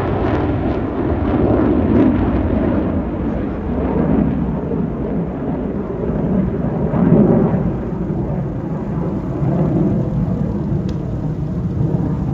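Deep, rolling jet-engine rumble from two Dassault Rafale fighters high overhead, swelling and easing in waves.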